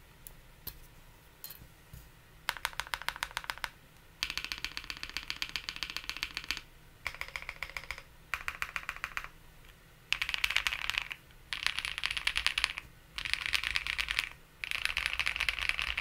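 Bubble75 mechanical keyboard with lubed KTT Strawberry switches on a polycarbonate plate, fully foamed, with GMK keycaps, being typed on. A few single keypresses in the first two seconds give way to about eight runs of fast keystrokes, each a second or two long, with short pauses between them; the runs in the second half are the loudest.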